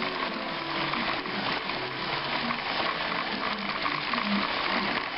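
Model train running on its track: a steady crackling rattle.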